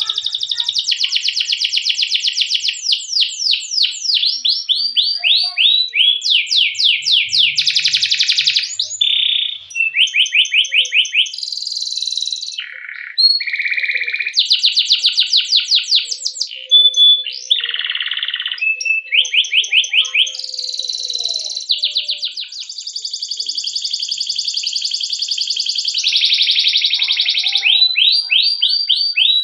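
Domestic canary singing a long unbroken song of rapid rolling trills, switching from one fast repeated-note phrase to another every second or two.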